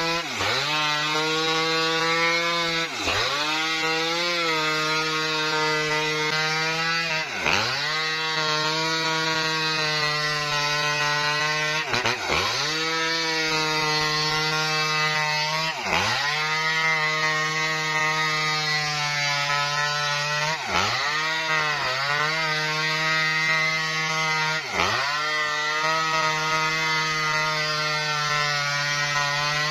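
Maestro two-stroke chainsaw running at high revs under load, ripping lengthwise along a felled coconut palm trunk. Its pitch dips briefly and recovers every four seconds or so.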